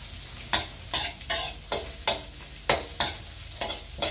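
Metal spatula scraping and knocking against a wide metal wok, about two strokes a second, as chopped lemongrass, shallots, chillies and lime leaves are dry-roasted and tossed. Some strokes ring briefly off the wok.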